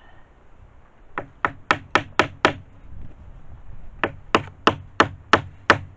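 Hammer tapping on the end of a laminate floating-floor plank: two quick runs of about six light, sharp strikes each, about four a second, with a pause between them.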